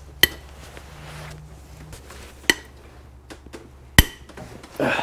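Cylinder head bolts being cracked loose with a breaker bar and 15 mm socket: three sharp metallic cracks, each with a brief ring, one right at the start, one midway and the loudest near the end.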